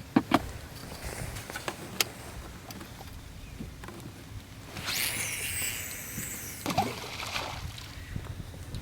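Rod and casting reel during a cast: a few sharp clicks, then about a second of line hissing off the spool about five seconds in.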